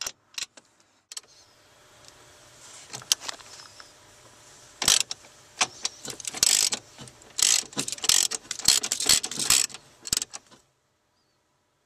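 Socket ratchet clicking as a steering column mounting bolt is loosened: scattered clicks at first, then fast runs of clicking from about halfway through, cutting off near the end.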